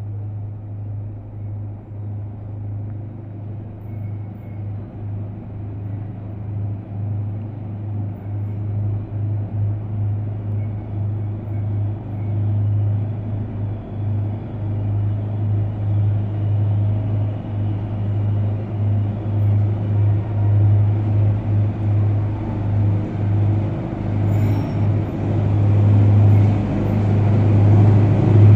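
Locomotive running with a steady low hum and rumble that slowly grows louder, as of a train drawing closer.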